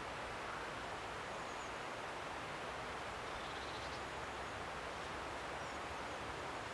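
Steady woodland ambience: an even rushing background noise, with a few faint, high bird chirps about a second and a half in, around four seconds and near the end.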